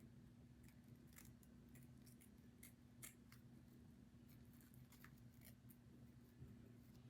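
Scissors making faint, irregular small snips, trimming the lace of a wig.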